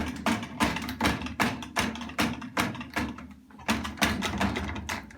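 Dishwasher racks and dishes knocking and rattling over and over as a toddler bangs around in the machine, about three knocks a second.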